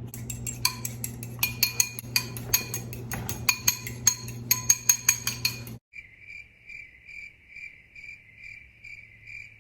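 A fork beating eggs in a glass bowl, quick irregular clinks for about six seconds over a low steady hum. Then, after an abrupt cut, a high electronic tone pulsing about three times a second.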